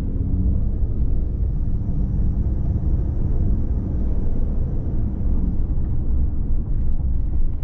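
Ford F-150 pickup driving at speed, heard from inside the cab: a steady low rumble of road and tire noise. There is no hum or grind from the front four-wheel-drive actuators, which have just been replaced as the cause of the earlier mud-tire-like hum.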